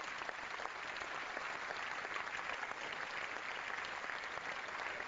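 Members of parliament applauding in the chamber: many people clapping steadily in a dense patter of claps that doesn't let up.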